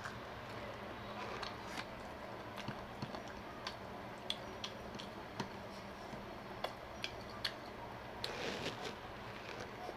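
A person eating close to the microphone: chewing and mouth sounds with scattered sharp clicks and smacks, and a short rustling patch near the end.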